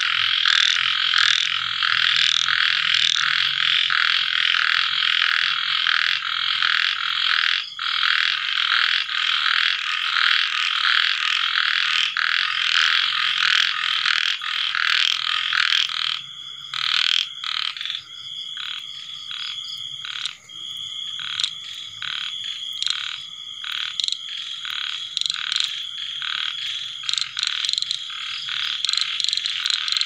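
A chorus of small frogs (khiat) calling after rain, a dense pulsing din that thins about halfway through into separate repeated calls over a steady high trill.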